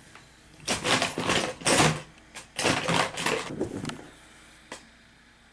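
Hand rummaging among clay-sculpting tools on a tabletop: about three seconds of clattering and rustling, then one light click near the end.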